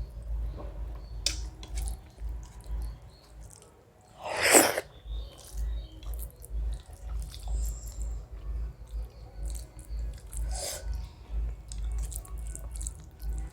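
Close-miked chewing and mouth sounds of someone eating a meal of khichuri and fried fish, with small wet clicks. A short, loud breathy burst about four and a half seconds in, and a fainter one near eleven seconds.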